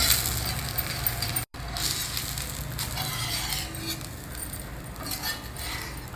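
Dosa batter sizzling on a hot cast iron tawa while a steel spatula scrapes and clicks under the dosa's edges to loosen it from the pan. The sound cuts out to silence for a moment about a second and a half in.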